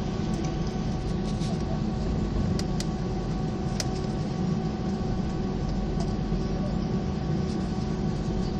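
Airbus A319 cabin noise while taxiing: a steady drone and low rumble of the engines at taxi power and the cabin air system, with a steady whine through it and a few light ticks.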